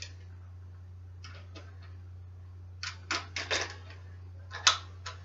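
Metal bicycle parts clicking and knocking together as handlebars are fitted to the stem: a quick cluster of clicks past the middle and one sharp louder knock near the end.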